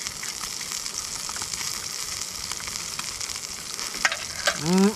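Steady hiss of background noise, with a few light clicks of a fork on a stainless steel mess tray near the end, then a man's short hummed "mm-mm" while eating.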